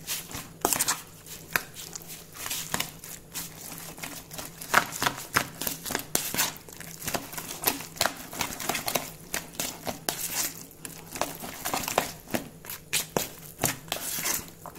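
Metal spoon stirring chopped shrimp and raw egg in a bowl, with irregular rapid clicks and scrapes as it knocks against the sides, along with the wet squish of the mixture.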